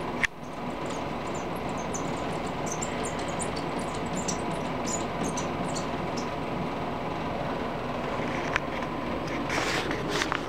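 A cat's paws scrabbling nonstop against a glass door panel and its blinds, a steady rustling clatter with scattered light clicks and a sharp click just after the start. This is the cat running in place against the door, trying to get into the house.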